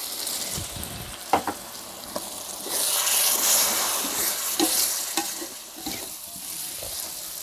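Fried salted squid, petai and chili paste sizzling in a pan with a little water added, a spatula stirring it with occasional scrapes and taps. The sizzle grows louder about three seconds in, then eases off.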